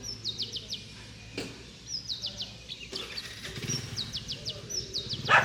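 A songbird singing the same short phrase four times, each a high note followed by a quick run of four or five falling notes. A sharp knock near the end, louder than the song, and a lighter click earlier.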